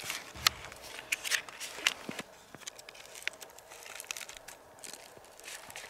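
Small scissors snipping a paper elk tag, the tag crinkling and rustling in the hand: a string of sharp snips and crackles, the loudest about half a second in.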